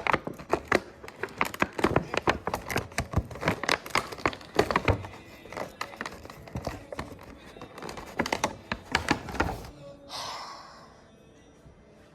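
Hands working plastic toy packaging: a rapid, irregular run of clicks, taps and knocks, with a brief rustle about ten seconds in. The packaging is being worked to free a small plastic pet figure held in by ties.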